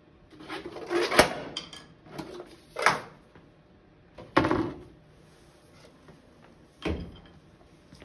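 A weight dropped down a perforated plastic sewer pipe rattles briefly, then lands on an aluminium soda can with a sharp bang about a second in, crushing it. Three more knocks and clatters follow over the next several seconds as the pipe, the weight and the crushed can are handled.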